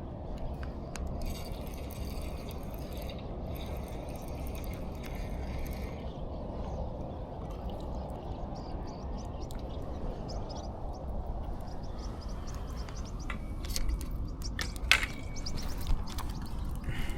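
A fishing reel being cranked, a fine rapid ticking in two spells of about two seconds each, over a steady low wind rumble. Scattered clicks and taps follow near the end.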